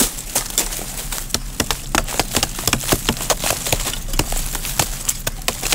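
A tool striking and chipping into a hard earthen termite mound: a rapid, irregular series of sharp knocks, several a second.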